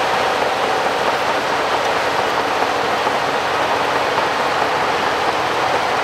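Shantui DH17 crawler bulldozer working as it pushes soil, giving a steady, unbroken noise of engine and tracks.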